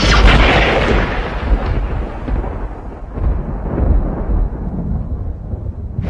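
Thunder: a loud crack at the start, then a long, deep rolling rumble that fades and swells again.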